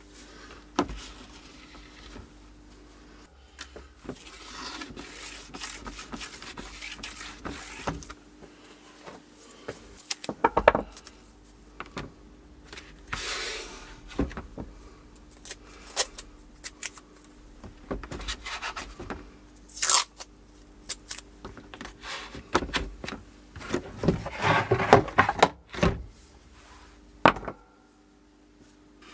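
Hand work on a board repair: irregular scraping and tearing stretches broken by many sharp clicks and knocks, over a faint steady hum.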